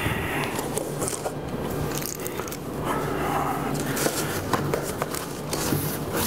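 Small clicks and scrapes of an aluminium-framed folding display panel being handled and adjusted, over a steady low hum.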